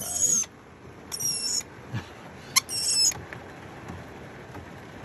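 Lorikeet giving three short, shrill, high-pitched screeches, each falling slightly in pitch, spaced a little over a second apart.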